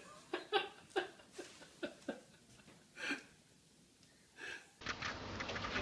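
Short breathy vocal sounds, like stifled laughing or gasping, come in about eight quick bursts at uneven intervals. A little before the end they give way abruptly to a steady hiss.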